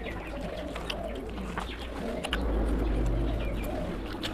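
Close-up eating sounds: wet chewing and lip-smacking clicks over a low wavering hum, with a louder low rumble in the middle.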